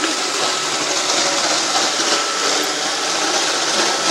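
iRobot Roomba 560 robot vacuum running: a steady whirring rush with a thin, constant whine.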